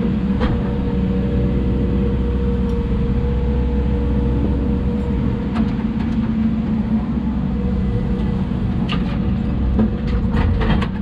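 Hidromek 140 excavator's diesel engine running steadily, with a few short clicks and knocks near the end.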